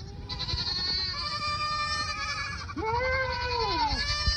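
Several goats bleating in long, overlapping calls; one call rises and falls in pitch about three seconds in.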